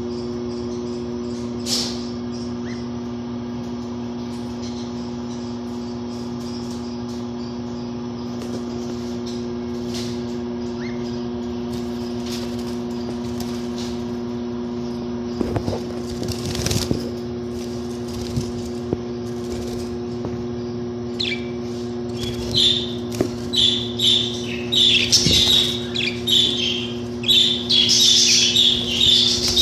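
Caged budgerigars chattering in rapid, high, loud chirps that begin near the end, over a steady low hum. Before the chirping there are only scattered rustles and knocks.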